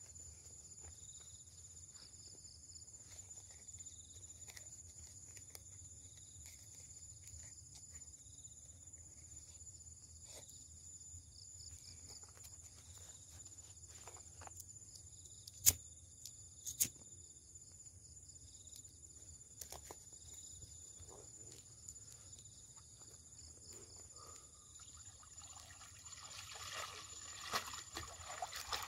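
Quiet riverside ambience with insects chirring in a steady high drone and pulsing chirps. There are two sharp clicks about halfway through. Over the last few seconds, water sloshes and splashes as a person wades waist-deep in the river.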